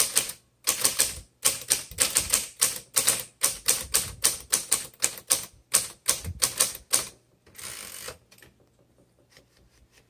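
Keys typing on a 1967 Smith Corona Super Sterling manual typewriter: a quick run of sharp typebar strikes, about four a second. The strikes stop about seven seconds in, followed by a brief half-second rasp.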